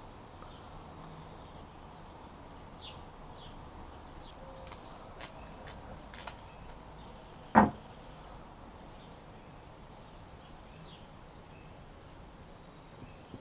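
Small metallic clicks of hooks, split rings and a metal jig being worked with split-ring pliers, with one louder sharp knock about seven and a half seconds in. Faint short high chirps repeat in the background.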